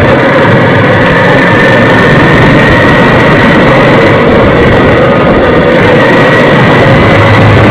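Motorcycle engine running steadily at road speed, heavily mixed with wind rush on the microphone, with a faint whine slowly rising in pitch.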